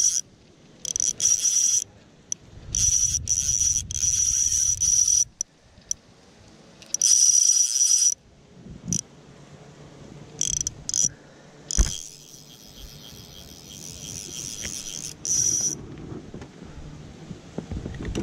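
Fly reel clicker buzzing in repeated bursts that start and stop abruptly, from half a second to a few seconds long, as fly line runs off or onto the spool. A single sharp knock about twelve seconds in.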